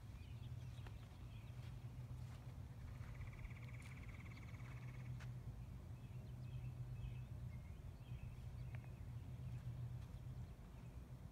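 Quiet open-air ambience: a steady low rumble with faint bird chirps scattered through it and a brief buzzing trill about three seconds in.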